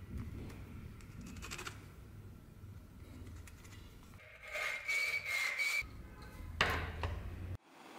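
Hacksaw cutting a rusty steel rod clamped in a vise: rasping back-and-forth strokes, loudest in a quick run about halfway through, where the blade gives a high squeal, and again near the end.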